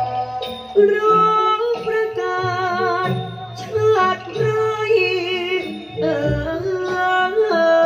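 A singer's voice, with wavy vibrato on held notes, in a Thai likay song over a traditional ensemble with steady drum strokes.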